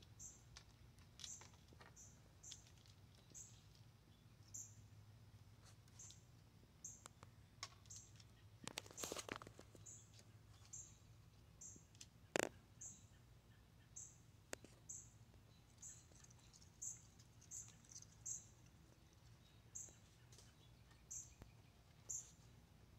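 Near silence with a faint, short, high chirp repeating every second or so, and a few scattered soft clicks, the sharpest about twelve seconds in.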